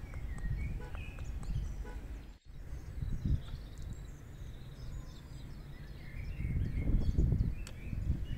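Outdoor background noise: a fluctuating low rumble with faint bird chirps. The sound drops out briefly about two and a half seconds in.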